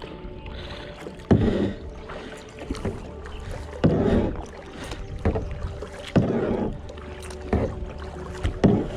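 Kayak paddle strokes in river water, with a loud splash about every two and a half seconds and smaller drips and knocks between.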